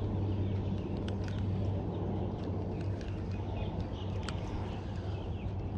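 Wind rumbling steadily on the microphone at the water's edge, with birds chirping here and there in the background.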